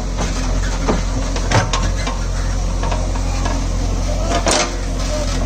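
Diesel engine of heavy machinery running at a steady low hum, with a few sharp knocks or clanks about one second in, again about a second and a half in, and near the end.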